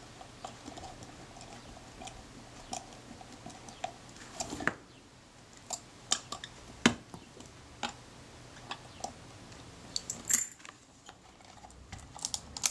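Scattered small metallic clicks and taps of a fine screwdriver working a screw in the top plate of a Kodak Retina IIa camera, with the camera body and small parts being handled; the sharpest tap comes about seven seconds in, and a quick run of clicks near the end as the camera is turned over.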